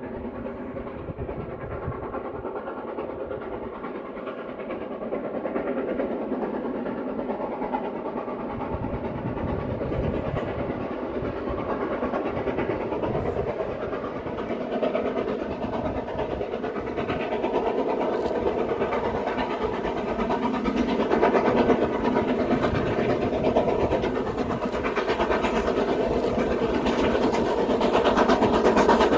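Steam locomotive working hard at the head of a passenger train, its exhaust and running growing steadily louder as it approaches.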